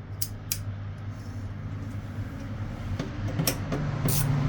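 Truck heater blower motor running with a steady hum, with a few sharp clicks. A steady tone comes in about three and a half seconds in and the sound grows louder toward the end. The new motor will only run on high, the one fan speed that works.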